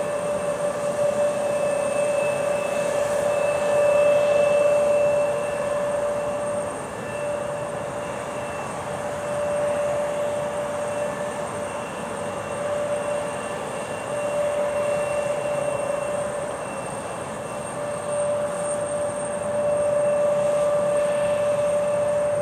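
The turbofan engines of an American Eagle Embraer E175 regional jet as it taxis: a steady whine over a broad rush, swelling and easing slightly as it passes.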